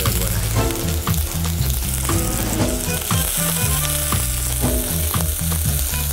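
Sliced red onion sizzling in hot olive oil in an enamelled pot, stirred with a wooden spoon.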